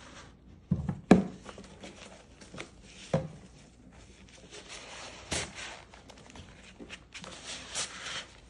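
Hands handling the box and packaging of a streaming transport during unboxing: a few sharp knocks, with rustling and scraping in between.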